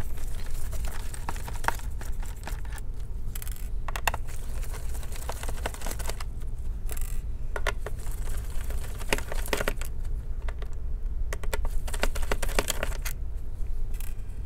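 A small Phillips screwdriver unscrewing laptop bottom-cover screws: irregular light clicks, ticks and scrapes of the bit in the screw heads, with small taps as screws and the tool are handled. A steady low hum sits underneath.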